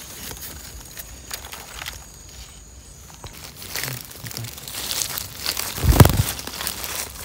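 Footsteps and rustling through dry leaves and undergrowth, with scattered crackles and a louder rustle and thump about six seconds in.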